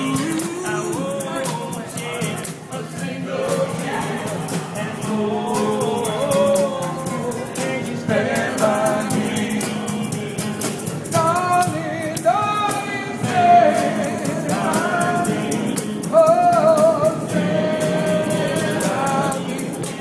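A trio of men singing an oldie together in harmony, with a handheld shaker rattling along to the beat.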